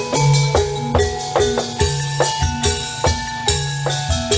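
Instrumental background music with a steady beat and a quick melody of short, bright notes.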